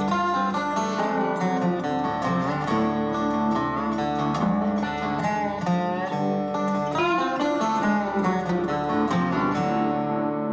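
Background music led by a plucked guitar, some notes sliding in pitch.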